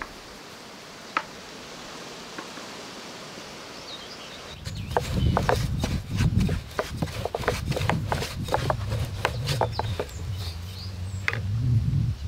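Quiet outdoor background, then about four and a half seconds in, a wooden rolling pin rolling out dough on a wooden board: a low rumble with quick wood-on-wood knocks and taps.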